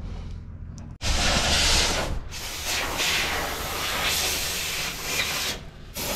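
Air blower hissing as it blows dirt out of the combine's concave supports. It starts suddenly about a second in and breaks off briefly near the end.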